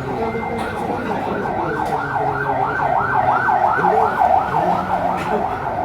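Electronic siren in a fast yelp, its pitch rising and falling about three times a second. It grows louder toward the middle and eases off near the end.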